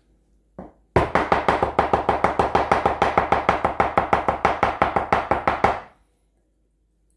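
High-carbon steel cleaver rapidly chopping smashed garlic on a wooden cutting board: a single chop just after the start, then a fast, even run of about eight chops a second for nearly five seconds that stops abruptly.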